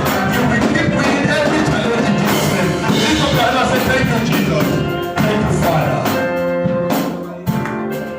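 Music with drums and singing, thinning out to a few held notes near the end.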